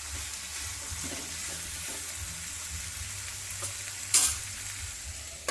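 Chicken cooking in onion-tomato masala sizzling in a pan, a steady hiss, with one sharp clack about four seconds in.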